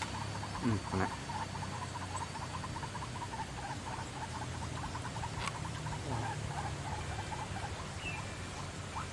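White-breasted waterhen calling: a fast, steady run of short repeated notes at one pitch, several a second, over a low steady hum.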